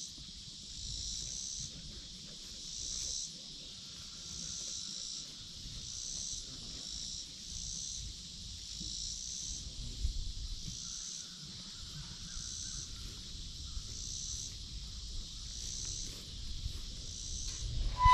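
Insects calling in a steady, high-pitched chorus that swells and fades about once a second.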